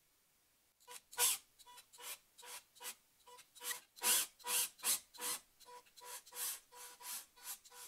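Handheld drill boring into wood through a depth-stopper jig, starting about a second in. The rasping cut comes and goes in quick surges, about three a second, over a faint steady motor whine.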